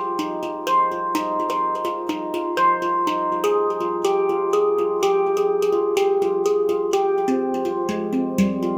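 Nimo handpan tuned to F low Pygmy being played in a quick, steady rhythm, about five or six strikes a second, its notes ringing on under each other.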